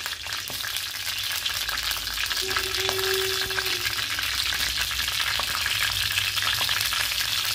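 Cumin seeds and bay leaves sizzling steadily in hot oil in a kadai.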